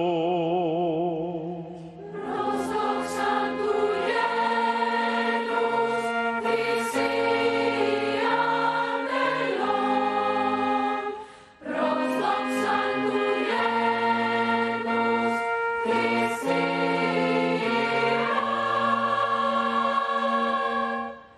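A solo male voice holds a last note with a wide vibrato, then a choir comes in singing slow, sustained chords. The choir breaks off briefly about halfway through and starts again.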